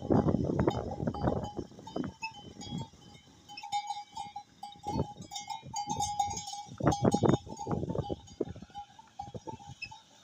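Bullock-driven Persian wheel turning: a steady high squeak from the turning iron gearing, with irregular clanking and rattling, loudest at the start and again about seven seconds in.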